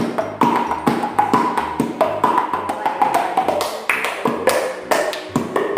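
Hand-and-mouth percussion: hands tapping against the mouth and cheeks, the mouth's shape tuning each tap. The taps come in a quick, steady rhythm and their pitch steps up and down to make a tune.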